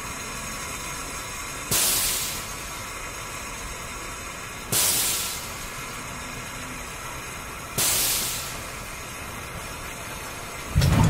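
Steam-machine sound effects: three sharp hisses of venting steam, about three seconds apart, each fading within a second, over a steady mechanical hum. A loud low rumble starts just before the end.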